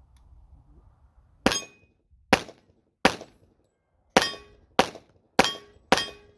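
Rock Island Armory 1911 A1 FS pistol in .45 ACP fired seven times in a steady string, about one shot a second or a little faster, with an eighth shot right at the end. Several shots are followed by a brief metallic ring, as of hits on a steel target.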